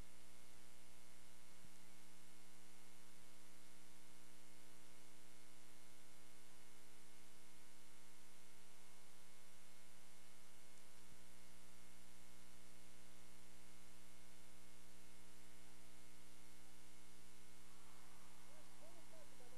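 Steady electrical hum with many evenly spaced overtones, a buzz on the recording's audio track with no game sound coming through. Near the end a few short wavering tones rise over it.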